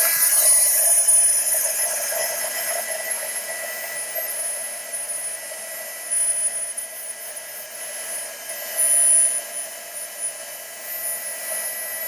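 Worx MakerX heat gun running steadily, a whine over rushing air, melting embossing powder on a pop-can aluminium wing.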